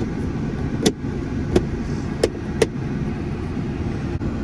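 Four sharp plastic clicks as the interior light's cover is pressed back into its housing, over a steady low rumble.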